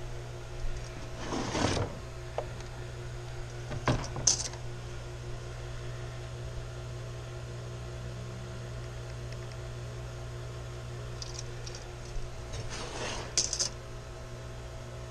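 Steady low hum with a few brief handling sounds as measuring and marking tools are worked on a wooden door panel: a short scrape about a second and a half in, a sharp click near four seconds, and another short scrape near the end.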